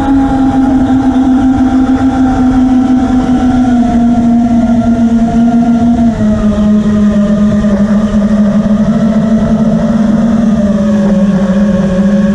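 FPV drone's motors and propellers buzzing steadily, with a few slight step-downs in pitch around the middle and again near the end as the throttle eases.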